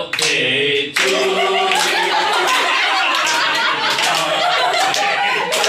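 A small group of people clapping, with laughter and voices over it; the clapping starts about a second in and keeps on.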